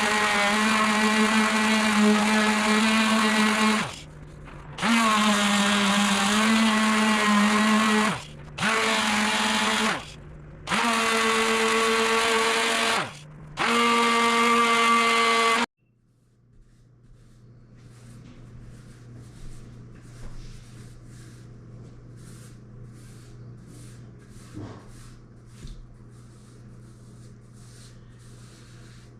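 Electric power sander sanding pecan wood rounds, its motor running with a steady whine in five runs of a few seconds each, stopping briefly between them. About sixteen seconds in it cuts off abruptly, leaving a faint low hum with light ticks.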